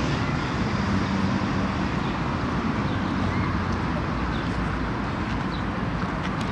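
1984 Kenworth truck's V8 diesel engine idling steadily, with a few faint bird chirps.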